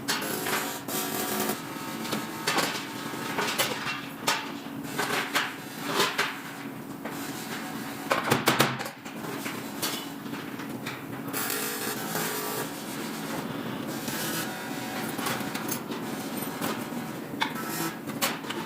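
Workshop handling noise: irregular knocks, clatter and scraping of tools and metal parts being worked, over a steady low hum.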